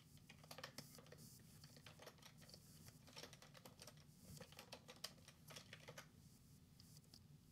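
Faint keystrokes on a computer keyboard: several short runs of typing, with pauses between them.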